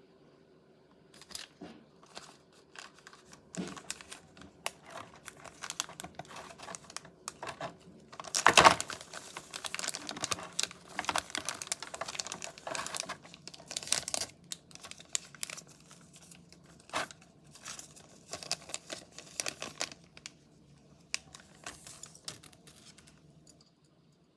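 Packaging being handled and opened: irregular crinkling, crackling and rustling with some tearing, the loudest burst about a third of the way in, dying away near the end.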